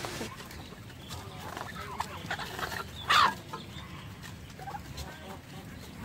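Male domestic turkey in strutting display giving one short, loud gobble about three seconds in, with a few softer calls around it.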